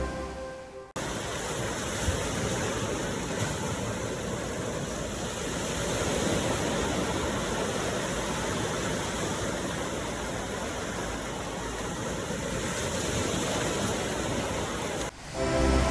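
Ocean surf as a steady rush of water with slight swells, between stretches of music: the music fades out within the first second and comes back near the end.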